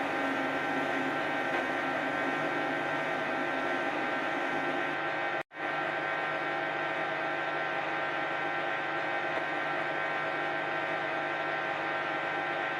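Hoover 10 kg washing machine on its 1400 rpm spin: a steady motor and drum hum with many steady tones that do not change in pitch. The sound cuts out for a moment about five and a half seconds in.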